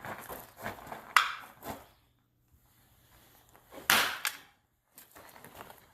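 Sledgehammer blows striking a piece of CANBed truck-bed material laid on gravel: a sharp, loud hit about a second in, then another heavy hit about four seconds in.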